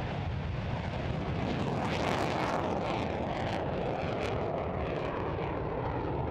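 Display aircraft flying over, a steady loud rumble that swells about a second and a half in, with irregular crackles on top.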